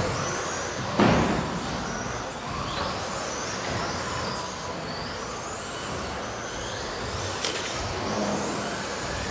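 Radio-controlled stadium and short-course trucks racing on a carpet track, their electric motors whining and rising and falling in pitch as they accelerate and brake. There is a sharp knock about a second in.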